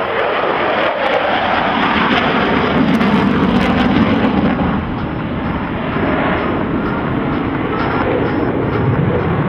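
An F-15 Eagle fighter's twin turbofan engines at high power during a banking pass, a loud steady jet rumble and hiss that swells about three to four seconds in and eases slightly after.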